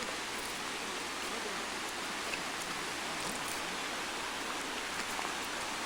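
Steady rushing of flowing creek water, with a few faint ticks.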